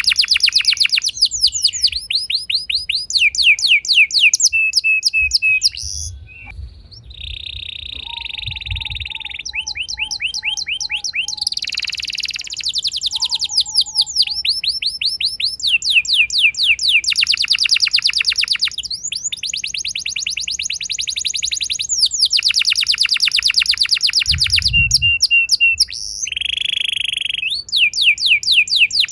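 Domestic canaries singing long rolling trills: fast runs of repeated high notes, phrase after phrase with short breaks between them.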